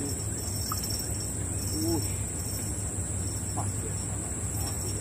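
Steady high-pitched insect chorus of crickets or cicadas over a low steady rumble, with a few short chirping calls scattered through, the clearest about two seconds in.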